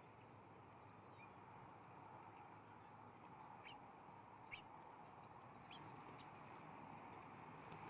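Wild birds giving a few short, high chirps scattered through, over a faint steady background hiss.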